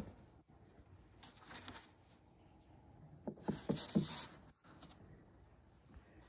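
Faint handling noises: a soft knock at the start, then rustling with a quick run of light taps a little after the middle and a click.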